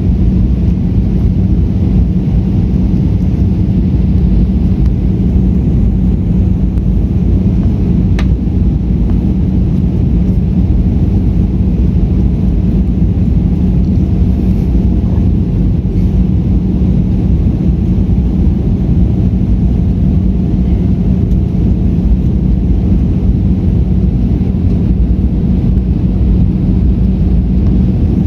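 Steady cabin noise of an Airbus A320 descending on approach, heard from inside at a window seat: a loud, even rumble of engines and airflow with a constant low hum.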